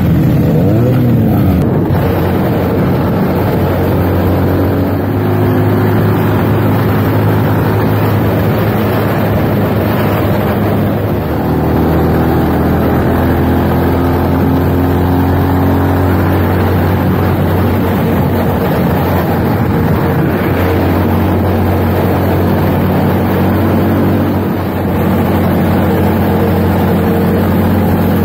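Motorcycle engine running while riding along, with wind rushing over the microphone. The engine note falls in the first two seconds, then holds steady, shifting pitch a few times.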